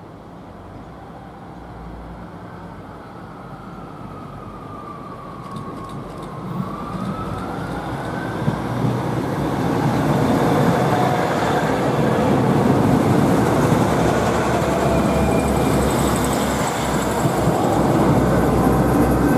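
ScotRail Class 153 diesel railcar, coupled to a further Sprinter unit, approaching and running past along the platform. Its engine and wheel noise grow steadily louder over the first ten seconds and then stay loud. A thin whine dips and then rises in pitch about six seconds in, and steady high whines run through the second half.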